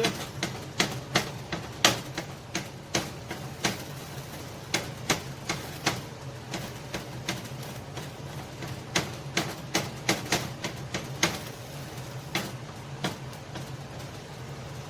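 Spatula chopping up ground beef in a frying pan: sharp, irregular clacks against the pan, several a second in clusters with short pauses, over a steady low hum.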